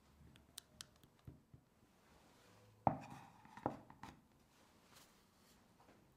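A wooden board holding steel ring molds set down on a countertop: a sharp knock about three seconds in, followed by a short ringing tone, then a second, softer knock a moment later. Before it, a few light clicks and taps from a silicone spatula in a glass bowl.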